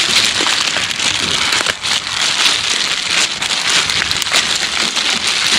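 Plastic courier mailer crinkling and crackling as it is torn open by hand.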